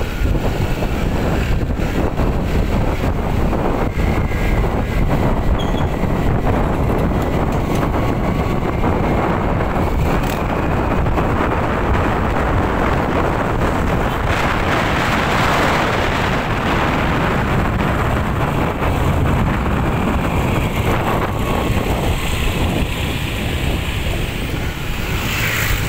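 Wind rushing over the microphone of a rider on a moving motor scooter, with the scooter's engine running underneath; a loud, steady rush of noise that swells for a few seconds midway.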